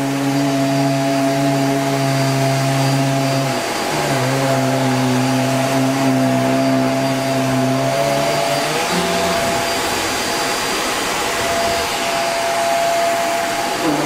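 Hoover REACT Professional upright vacuum running on carpet with a steady hum. About two-thirds through, the low hum drops out while a higher steady tone carries on: the brush roll stopping as the vacuum is tilted upright, the floor-sensor micro switch doing its job.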